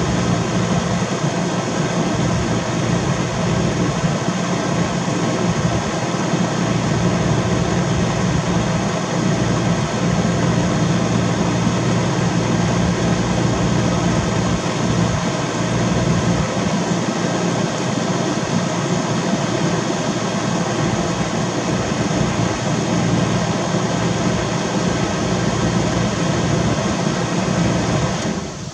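Steady mechanical drone with a low hum and many steady tones over it, unchanging throughout, dropping off abruptly at the very end.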